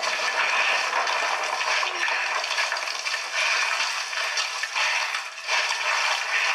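Video game audio: rough scraping and rustling effects of a character climbing and squeezing through a rock cave passage, rising and falling in short surges, with a dip a little after the five-second mark.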